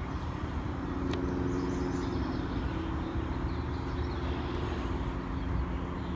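Steady low machine hum with a few held tones, unchanging throughout.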